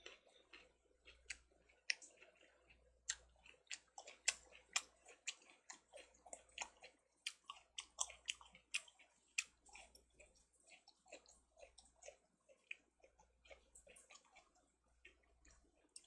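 Close-up chewing of raw yellow Korean melon (chamoe): wet mouth clicks and bites, a few a second, louder in the first half and softer later.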